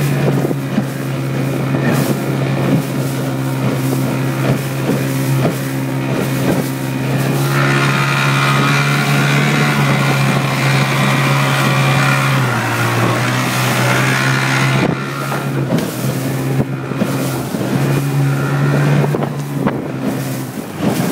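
Big outboard motor of a rigid inflatable boat running at a steady high speed, with water rushing and splashing along the hull, the hull knocking on the waves, and wind on the microphone. About twelve seconds in, the engine note drops for a moment, then comes back up.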